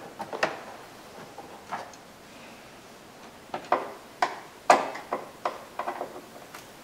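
Screwdriver working a Phillips screw in the plastic inside-door-handle recess of a car's door trim panel: about a dozen sharp, irregular clicks, the loudest a little under five seconds in.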